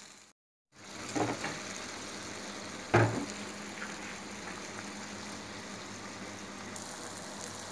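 Pan of lobia (black-eyed bean) and chicken curry simmering on a gas stove: a steady bubbling hiss after a moment's silence at the start, with a single knock about three seconds in.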